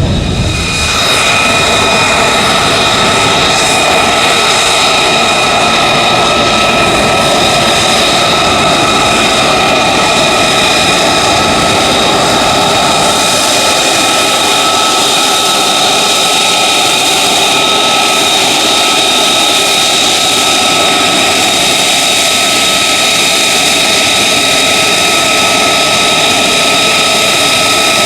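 Lockheed Martin F-35A Lightning II's single Pratt & Whitney F135 turbofan running loud and steady: a dense jet roar with a high whine of several held tones over it.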